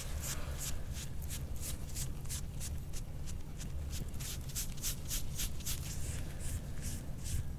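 Stainless steel soft-tissue scraping tool stroked quickly and repeatedly over oiled skin, about three short scrapes a second.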